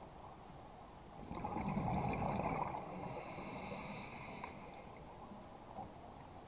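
Scuba diver's exhaled breath bubbling out of the regulator underwater: a gurgling rush that swells about a second in and dies away after three seconds, leaving a low steady hiss.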